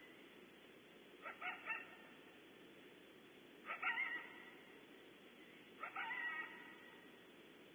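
Coyote barking: three bouts about two seconds apart, each a few quick barks. The later bouts trail off into a short drawn-out howling note.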